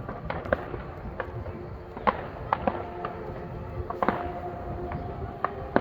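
Fireworks going off: about a dozen sharp bangs and pops at irregular intervals. A steady humming tone joins them about halfway through.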